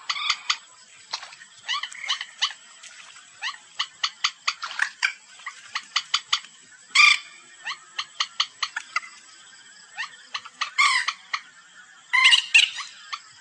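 Common moorhen calling: a string of short, sharp clucking notes, with louder, harsher calls about seven, eleven and twelve seconds in. It is a bird-lure recording of the species' calls.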